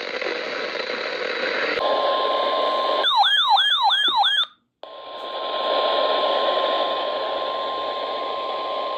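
Weather radio alert received over a steady hiss of static: a steady NOAA Weather Radio 1050 Hz warning alarm tone starts about two seconds in. About three seconds in it is cut in on by a fast warbling, siren-like alert for about a second and a half, then a brief dropout before the steady tone and hiss resume.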